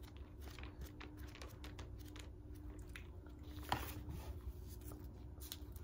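Thin Bible pages being leafed through by hand: faint, scattered papery rustles and flicks over a low steady hum.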